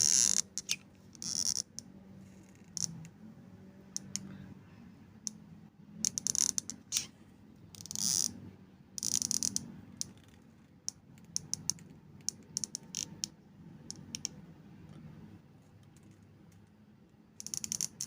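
Irregular short rustles and clicks of small wires and parts being handled close to the microphone, with brief scraping bursts every second or few.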